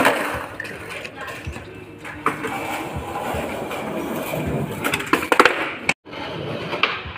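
Skateboard on rough concrete: a sharp board clack at the start, then the wheels rolling over the concrete, with several more sharp clacks of the board hitting the ground about five seconds in.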